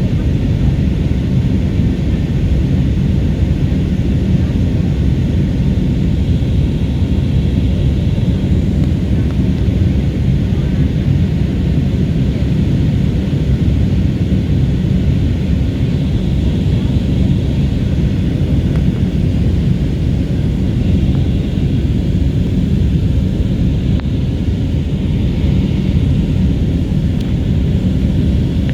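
Steady low rumble inside the cabin of an Airbus A320neo airliner in flight, from engine and airflow noise.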